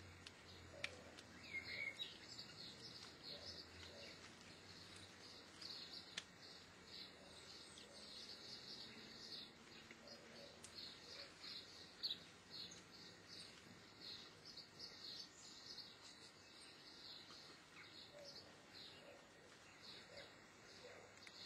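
Faint, quick high-pitched bird chirps, two or three a second, repeating all through, with a few sharp ticks standing out now and then.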